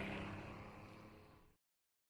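Truck engine running with a steady low hum, fading out and ending about one and a half seconds in.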